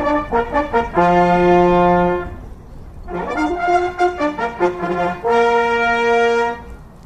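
Live brass band of trombone and trumpets playing a horse-race starting fanfare: two phrases of quick notes, each ending on a long held chord. The second held chord closes the fanfare and cuts off about six and a half seconds in.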